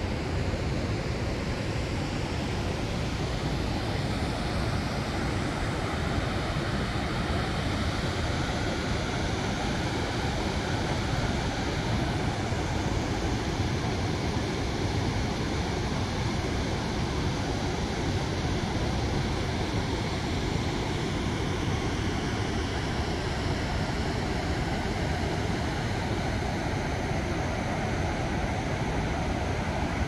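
River water rushing steadily over shallow rock ledges, with a waterfall falling nearby, a continuous even wash of water noise.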